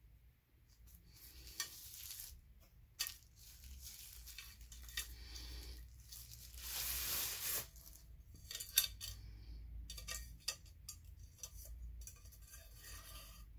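Plastic wrapping rustling as a small ceramic-coated titanium frying pan is pulled out of it and handled, with scattered light clicks and clinks from the pan and its wire handle. The loudest rustle comes about halfway through.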